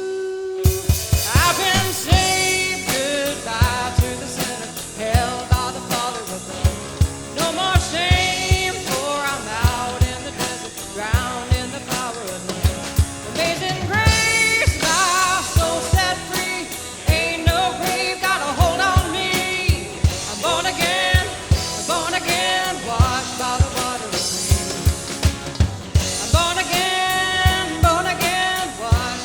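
Live worship band music: sung melody over a drum kit keeping a steady beat.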